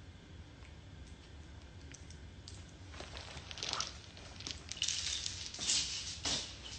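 Soft rustling and scattered light taps of handling noise close to the microphone, starting about halfway through and growing busier toward the end.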